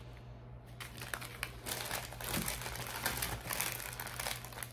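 Small plastic zip bags of diamond-painting drills crinkling as they are handled. The crinkling starts about a second in and gets busier after two seconds.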